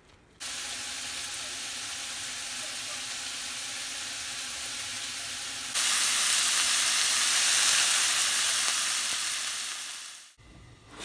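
Raw pork belly slices sizzling in a frying pan. The sizzle steps up louder about halfway through, fades out shortly before the end, and a sharp clang follows right at the end.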